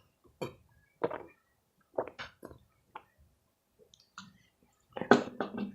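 Close-up chewing and wet mouth clicks in short separate bursts, with a faster, louder run of clicks near the end.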